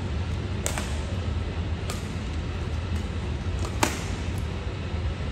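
Badminton rally: sharp racket-on-shuttlecock hits every second or two, the loudest about four seconds in. A steady low hum runs underneath.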